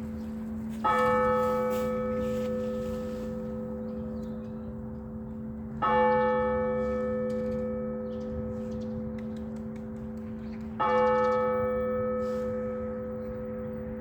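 A Russian Orthodox church bell tolled slowly, struck three times at even intervals about five seconds apart. Each stroke rings out and fades over a lingering low hum, the slow tolling that calls people to a church service.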